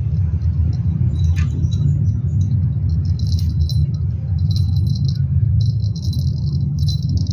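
Small metal jingling in short, irregular bursts over a steady low rumble.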